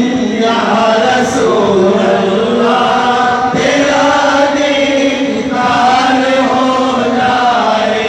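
A man singing a naat, an Islamic devotional poem in praise of the Prophet, into a microphone, drawing out long, wavering held notes.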